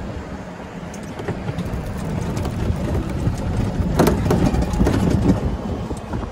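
Golf cart rolling along a paved cart path: a low rumble from the cart that grows louder over the first few seconds, with small rattles and a sharp knock about four seconds in.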